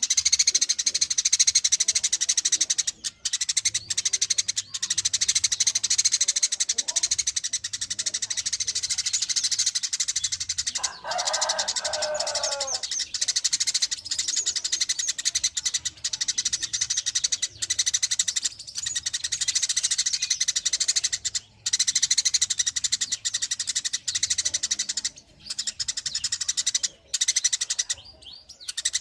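Dense, rapid, high-pitched bird chirping and twittering, with a short series of lower, falling call notes about eleven seconds in.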